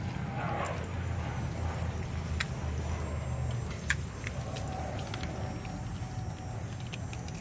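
Renascence Bulldogge puppies chewing raw fish, with a handful of short sharp clicks scattered through, over a steady low rumble.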